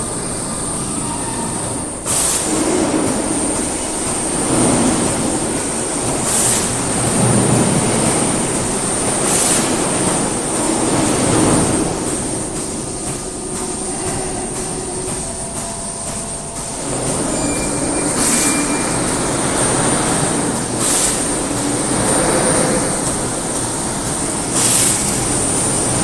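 Robotic CNC polishing machine running: polishing wheels working metal parts with a loud steady grinding noise and a constant high whine, swelling and easing every few seconds, broken by short hissing bursts about every three to four seconds.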